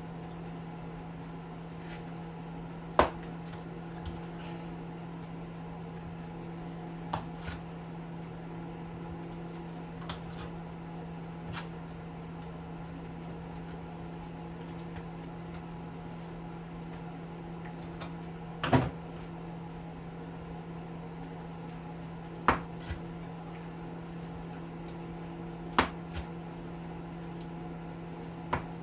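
Hand tools working on a hedge trimmer's electric motor during a teardown: scattered sharp knocks and clicks of metal on metal and plastic, about seven over the stretch, the loudest near the middle, over a steady low hum.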